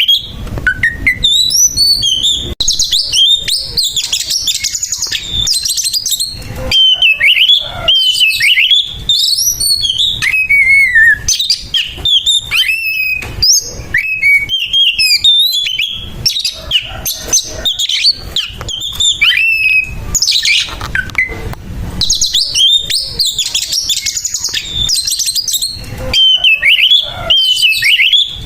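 Oriental magpie-robin (kacer) singing its aggressive 'fighting' song: a fast, unbroken run of varied whistles, trills and harsh scratchy notes, with only brief pauses.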